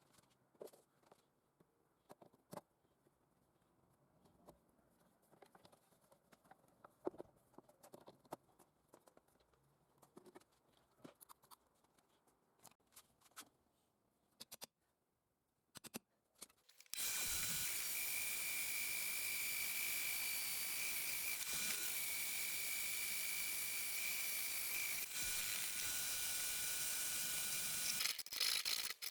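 Handling clicks and knocks, then a homemade belt grinder, built for 6300 rpm, switched on about halfway through. It runs steadily with a high whine and hiss until shortly before the end.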